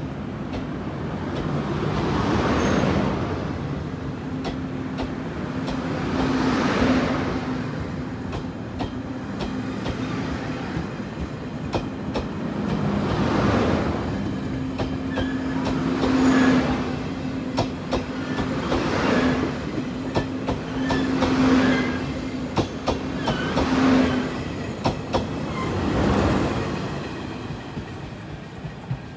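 Chu-Kuang express passenger coaches rolling past as the train pulls out. Their wheels clatter over the rail joints in a swell for each car, and the swells come closer together as the train gathers speed, over a steady hum. The sound fades near the end as the last coach draws away.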